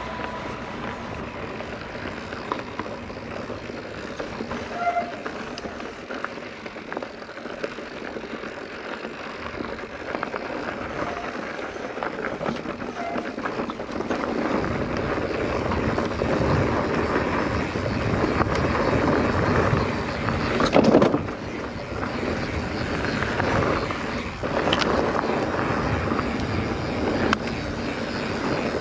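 Mountain bike rolling along a dirt trail: tyre and trail rumble with wind on the microphone. The noise gets louder about halfway through, and there is one brief loud knock a few seconds later.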